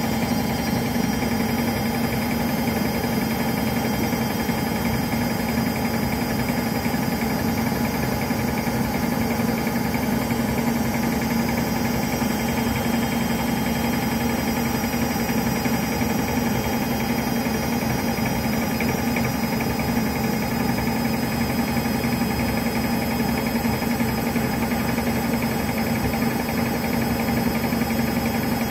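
Front-loading washing machine spinning its drum steadily at 650 rpm, a constant motor hum that does not rise or fall. Too much foam in the drum has put the machine into a suds lock, holding the spin at this low speed.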